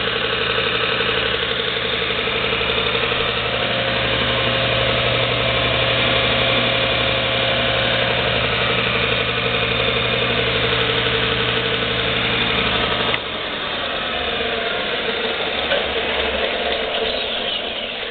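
JET 6 x 48 in. belt and 12 in. disc combination sander running with no load: a steady motor hum under the whir of the belt and disc. About two-thirds of the way through, the motor hum cuts off and the belt and disc coast down, fading near the end.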